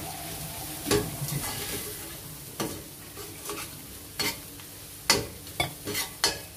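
A steel spoon stirs and scrapes onion and spice masala round a stainless steel pan, knocking sharply against the metal several times, loudest near the end. Under it runs a steady sizzle: the chilli, coriander and turmeric powders frying into the onions in oil.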